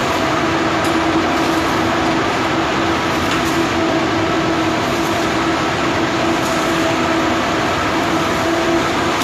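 Steady, loud industrial machine noise, a continuous rushing drone with a steady hum running through it, from equipment at work during weld repair inside a large steel tank.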